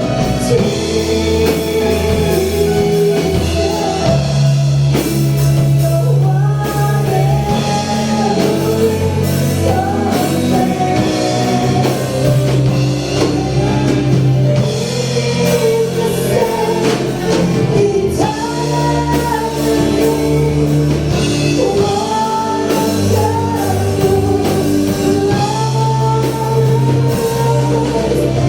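A live praise band playing a worship song, with a singer over guitar, bass and drums.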